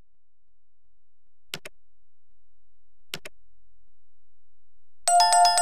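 Sound effects of a subscribe-button animation: two quick double mouse clicks about a second and a half apart, then a bright bell chime with many ringing tones near the end, the notification-bell ding.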